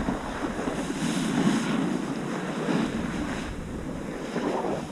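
Skis sliding and scraping over groomed snow on a downhill run, a continuous rush that swells with each turn, with wind buffeting the microphone.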